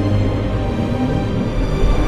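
Film soundtrack music with steady, sustained low notes.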